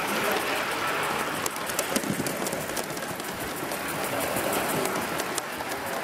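Live-steam model steam locomotive running past with a train of coaches: a steady hiss with fine crackling ticks from steam and wheels on the track.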